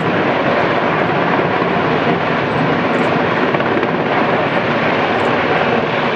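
Rescue helicopter flying overhead, its rotor and turbine making a loud, steady noise.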